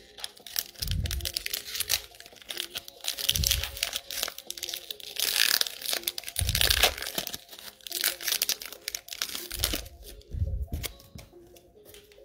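Foil Topps Chrome Soccer card pack being torn open by hand and its wrapper crinkled and crumpled, a dense crackling rustle. A few dull low thumps come in between.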